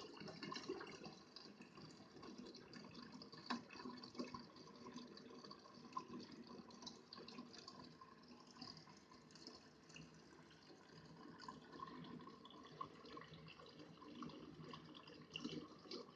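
Faint trickling and dripping of water running through a home filter and water-ionizer setup, with scattered small ticks.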